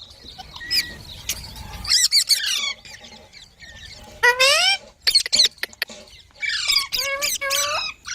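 Baby green parrots chirping: a run of short, sharp calls that glide up and down in pitch, quieter for a moment about three seconds in and loudest about four seconds in and again over the last two seconds.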